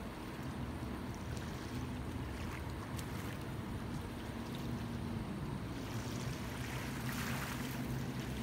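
Motor yacht's engine running steadily across the water: a low, even drone, with a rush of hiss swelling about seven seconds in.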